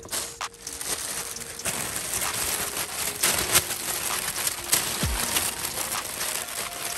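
Crumpled kraft packing paper crinkling and rustling as it is pulled out of a box and unfolded by hand, with a few short low thumps from handling in the second half.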